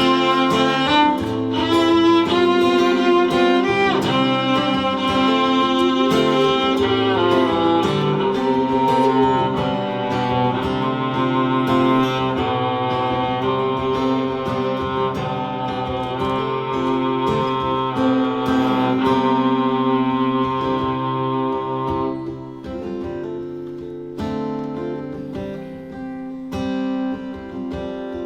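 Instrumental break of a song: a cello holding long bowed notes under a plucked guitar. About 22 seconds in the playing thins out and gets quieter.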